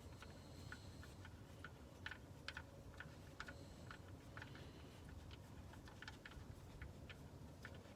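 Faint, irregular light clicks and ticks of tools or small parts being handled under the car during an oil change, over a low background hum.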